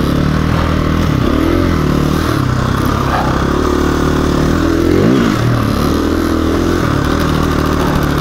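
2017 KTM 350 EXC-F's single-cylinder four-stroke engine running under way on the trail, heard from the bike itself. Its pitch dips and rises with the throttle, with a quick rev up and back down about five seconds in.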